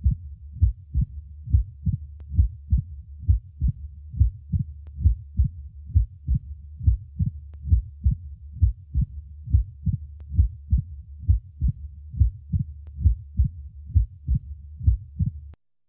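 Stethoscope recording from the cardiac apex in mitral stenosis: heart sounds repeating about twice a second, with an opening snap, a short high-pitched click following the second heart sound in early diastole. The beats stop just before the end.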